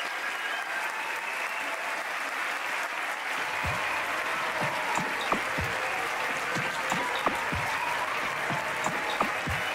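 Audience applauding steadily. From about three and a half seconds in, low thumps come roughly twice a second.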